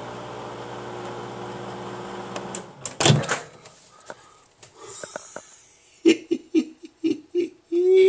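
Microwave oven running with a steady hum, which cuts off a little under three seconds in, followed by a loud clunk as the door is opened. Near the end a person laughs in a run of short bursts.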